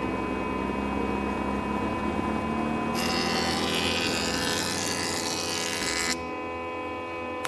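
Animated wheel loader's engine running steadily as a sound effect, with a faint rising whine while the bucket of rocks is lifted. A rushing noise joins in about three seconds in and stops abruptly about six seconds in.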